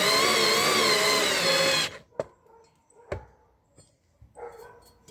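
A handheld power tool's motor runs with a loud, high whine that wavers in pitch and cuts off sharply about two seconds in. A few sharp metallic knocks and clicks follow as parts are handled.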